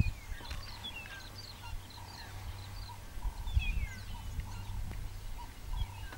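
Wild birds calling in the bush: repeated short chirps and quick falling whistles, over a low steady hum and a few dull low thumps.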